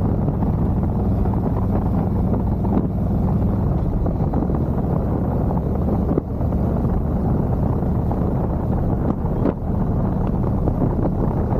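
Harley-Davidson Road Glide Limited V-twin running steadily at a cruise of about 28 mph, with wind rushing over the microphone.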